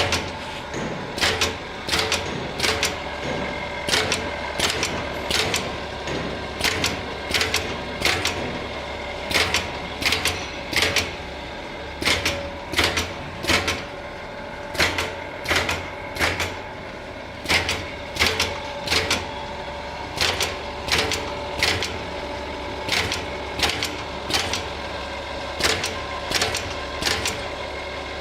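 Automatic 42-mould shoe-sole moulding machine running: a steady mechanical hum with sharp, repeated clacks coming one to two times a second.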